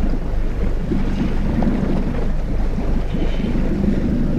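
Steady wind buffeting an action camera's microphone on an open boat at sea, a dense low rumble that rises and falls slightly.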